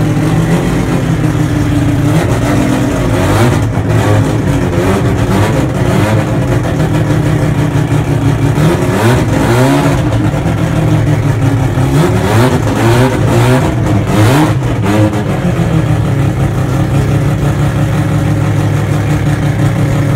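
Mazda RX-7's rotary engine running at idle and revved in several short throttle blips, the pitch sweeping up and falling back each time, mostly in the first three quarters, then settling to a steady idle through its exhaust.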